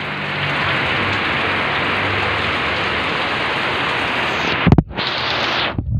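Heavy rain pouring steadily onto a flooded concrete road. Near the end come a few sharp knocks, and the rain sound cuts off abruptly.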